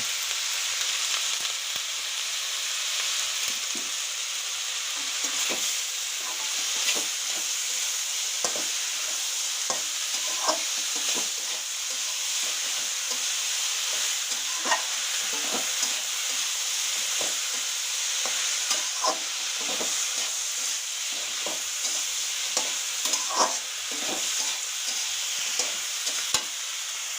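Cabbage and carrot stir-frying in a hot pan: a steady sizzle, with frequent irregular scrapes and knocks of the stirring utensil against the pan.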